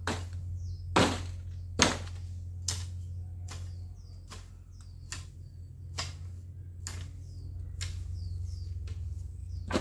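Garden hoe chopping into weedy ground, a sharp knock a little under once a second, the first two strikes the loudest. Short falling chirps sound high above the strikes.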